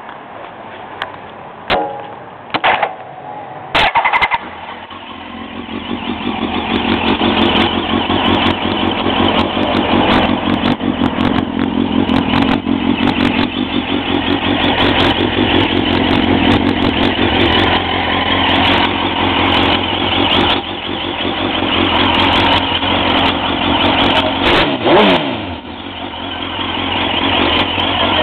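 2001 Suzuki GSX-R1000's inline-four engine, fitted with a Yoshimura RS-3 exhaust, starting after a few short clicks about four seconds in and then running steadily at idle. Near the end the revs rise briefly and fall back.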